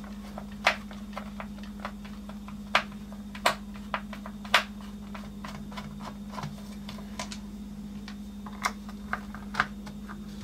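Small screwdriver working screws out of a plastic case: irregular light clicks and ticks, a few louder, over a steady low hum.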